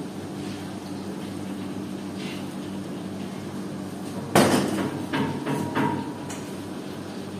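Metal kitchenware knocked down onto a stainless steel worktop: one loud clank about four seconds in, then a few lighter knocks and a brief metallic ring. A steady low hum runs underneath.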